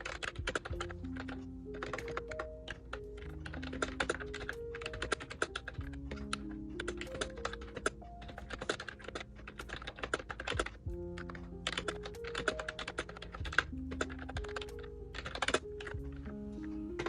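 Typing on an Ajazz Bluetooth membrane keyboard: fast runs of clicky keystrokes with short pauses between them, over background music.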